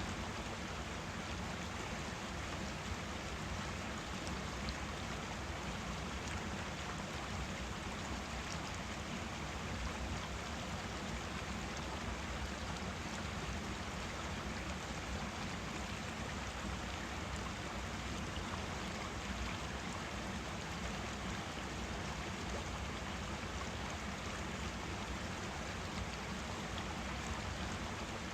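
Forest stream flowing, a steady rush of running water.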